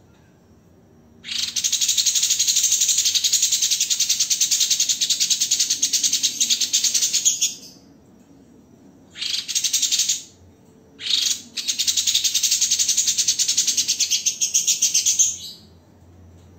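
A small songbird singing a high, very fast, dense rattling trill of the kind called a 'tembakan' (rapid burst), used to tutor cage birds. A long burst of about six seconds, two short bursts, then another long burst of about four seconds.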